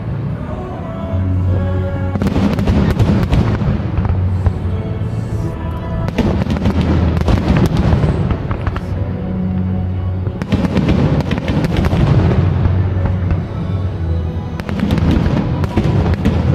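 Fireworks display: many bangs and crackling bursts, one close after another.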